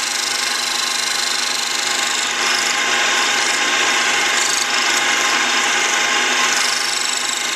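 A rotary burr on a mini lathe cutting a slot into steel: a steady grinding, rasping noise with a running whine through it, swelling a little as the carriage is worked back and forth in tiny strokes to widen the slot.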